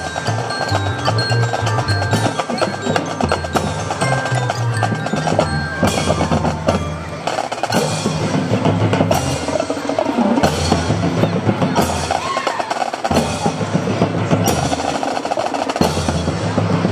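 Marching band playing: brass with drum hits and mallet percussion.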